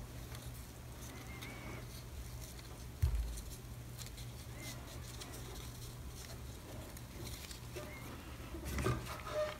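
Faint handling sounds of a fabric ribbon-covered headband being turned and pressed in the hands, with a dull thump about three seconds in and a louder rustle near the end, over a steady low hum.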